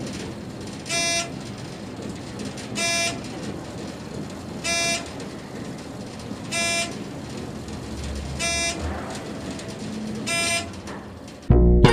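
Electronic beep tone sounding six times, evenly spaced about every two seconds, over a steady background hum. A low rumble swells briefly near the end.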